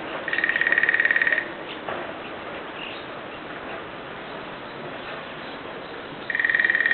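A woodpecker drumming on a metal TV antenna: two rapid rolls of about a second each, the metal ringing with a clear high tone, one at the start and one near the end.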